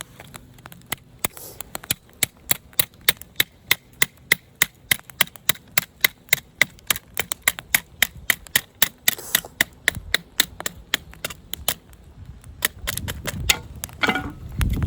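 A steady run of sharp knocks or taps, about three to four a second, stopping about twelve seconds in, followed by a louder rustling near the end.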